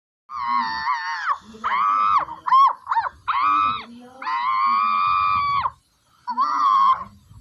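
A series of about seven loud, high-pitched screams: several short sharp cries, then one held for about a second and a half, with a short break before a last one.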